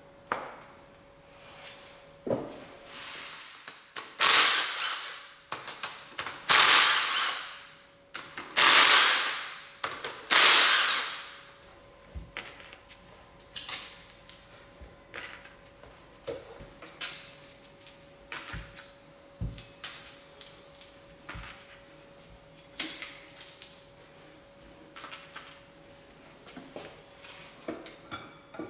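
A cordless power driver runs in four short bursts of about a second each, spinning out cam cap bolts. After that come scattered light clicks and clinks of metal parts being lifted off and set down.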